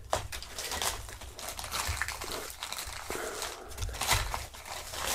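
A plastic mailer bag being torn open by hand: irregular crinkling and ripping of the plastic.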